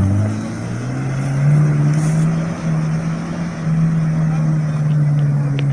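Off-road vehicle engine running at fairly steady revs, its pitch rising a little about a second in and then holding.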